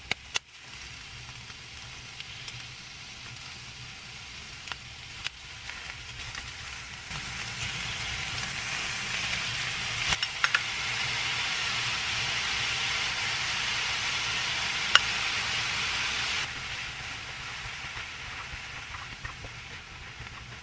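Squid, onion and noodles sizzling in a frying pan. The sizzle grows louder about seven seconds in and drops back about sixteen seconds in. Sharp clicks sound near the start and a few times later, from kitchen scissors snipping and wooden chopsticks against the pan.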